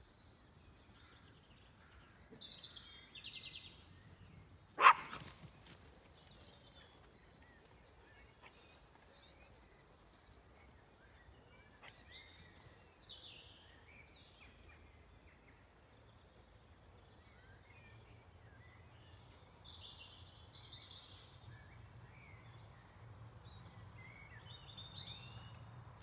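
Assorted songbirds singing in the open, with scattered short chirps and song phrases throughout. About five seconds in comes one short, sharp, loud sound, much louder than the birdsong.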